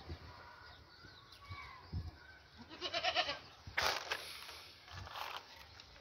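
Goat bleating: a wavering call about three seconds in, then a louder, harsher one just after.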